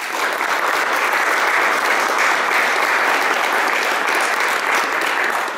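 Audience applauding: many hands clapping in a dense, steady patter that begins to die away near the end.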